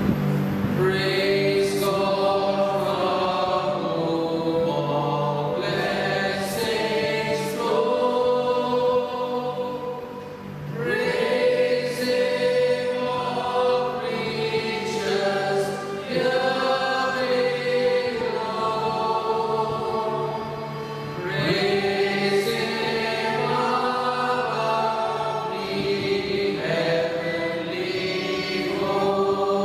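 Church choir singing slow, held phrases over steady sustained low accompaniment, as closing music after the benediction.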